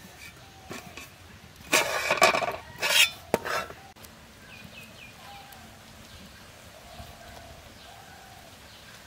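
Metal pot lid clanking against the pot as it is lifted off and set down, a few loud clatters about two seconds in, then quiet handling with faint bird calls in the background.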